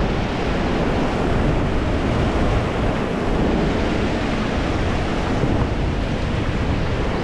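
Steady rush of wind and water noise, with wind buffeting the microphone.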